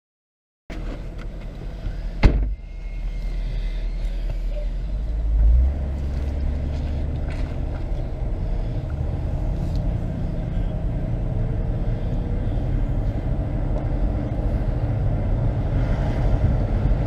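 BMW 645ci's V8 running, heard from inside the car as a steady low rumble. There is a sharp thump about two seconds in and a brief swell in level around five and a half seconds.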